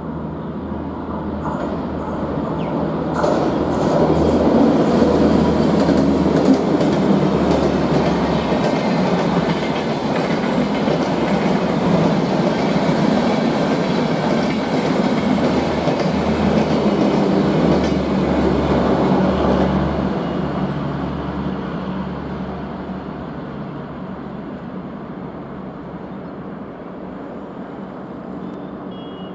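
Bangalore–Chennai AC double-decker express train passing at speed, its wheels clattering over the rail joints. It grows louder over the first few seconds, holds, then fades away in the last third.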